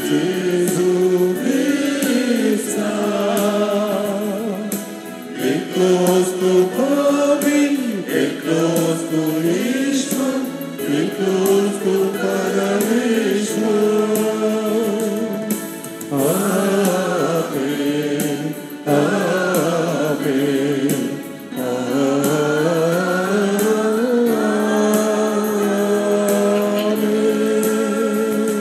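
Church congregation singing a hymn together in unison, a slow melody of rising and falling phrases that settles into long held notes near the end.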